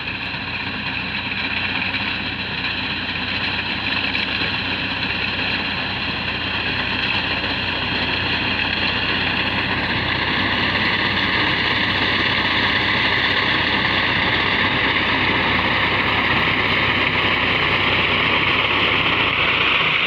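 Engine of a wheat-harvesting machine running steadily under load as it cuts the standing wheat, growing gradually louder as it draws closer.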